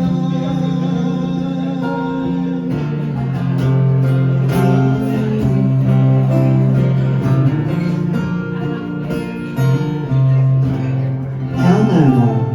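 Music: an instrumental passage of a ballad, led by plucked acoustic guitar over held low notes, with pitch-bending lines near the end.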